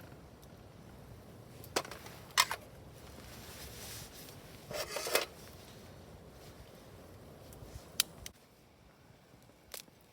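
A few sharp knocks and cracks, spaced seconds apart, with a short scraping rustle between them.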